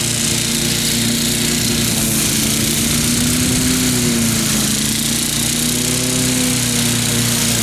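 Wolf Garten Cart ride-on mower running steadily as it cuts tall grass, its engine note rising and falling slightly.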